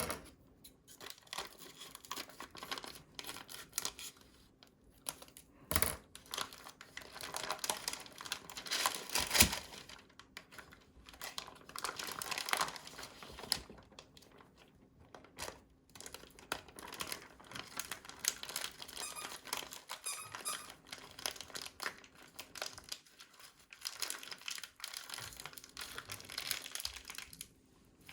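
Plastic packaging crinkling and tearing as food packs are handled and opened, with some squeaks and a couple of sharp knocks on a hard surface.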